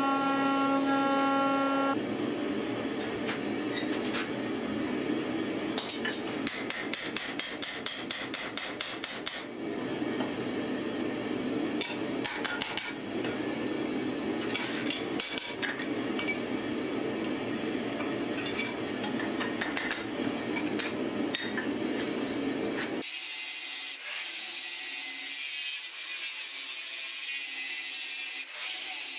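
A hydraulic forging press hums steadily and cuts off about two seconds in. Then a hand hammer strikes a hot steel axe head on an anvil, repeatedly, with a quick run of about four blows a second partway through. About 23 seconds in, an angle grinder takes over, grinding the steel.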